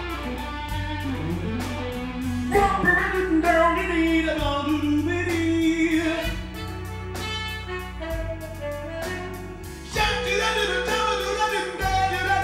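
Live showband playing with a male singer singing into a microphone over electric guitar and drums. The band gets louder about ten seconds in.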